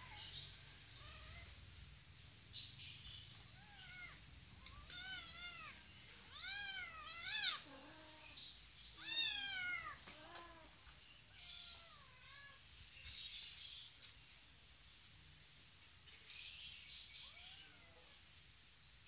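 Kittens meowing: a string of short, high meows, each rising and falling in pitch, loudest near the middle.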